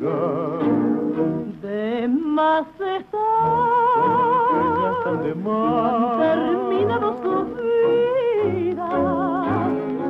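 A song: one voice singing long held notes with a wide vibrato over instrumental accompaniment with a regular low beat.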